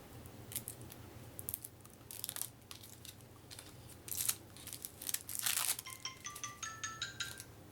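Plastic wrapping crinkling and tearing as a deck of cards is unwrapped. Near the end, a mobile phone's notification tone plays a short melody of stepped notes that rise in pitch.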